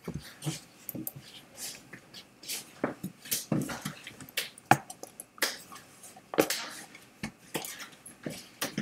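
A run of irregular knocks, taps and rustles close to the microphone, several each second, with no speech.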